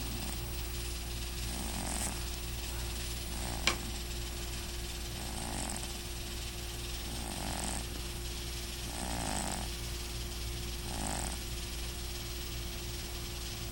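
A sleeping house cat snoring softly, one breath about every two seconds. One sharp click comes a few seconds in, over a steady low hum.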